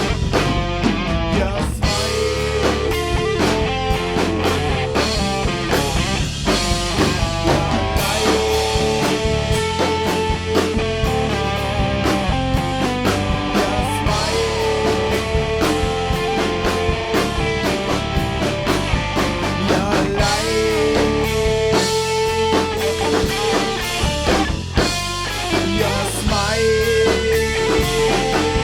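Instrumental rock music: electric guitar over drum kit and bass, with a sustained lead line repeating a phrase every few seconds.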